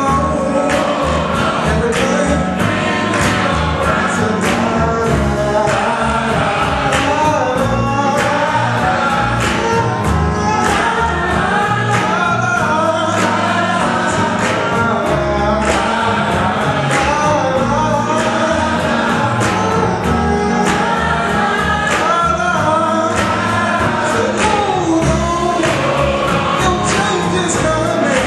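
Gospel choir singing with band accompaniment: many voices in harmony over a steady beat and bass line.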